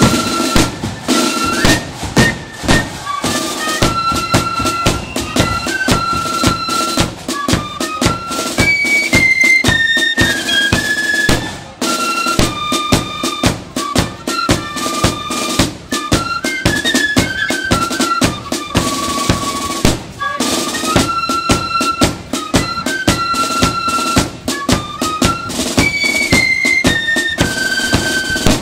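Marching flute band playing a melody on flutes over snare and bass drums, with short breaks between phrases about twelve and twenty seconds in.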